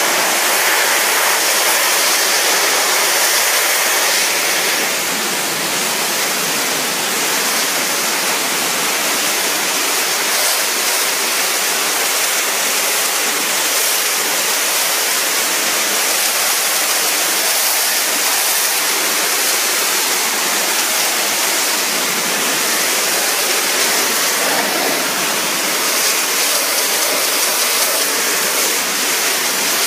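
High-pressure water jet from a pressure washer lance blasting paving slabs: a steady, loud hiss of spray on stone. It drops slightly in level about five seconds in.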